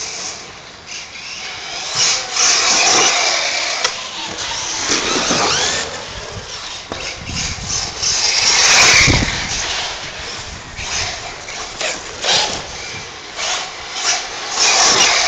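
Radio-controlled off-road buggies driving on a dirt track, their motors revving up and down in pitch over the hiss of tyres on loose gravel; loudest about halfway through.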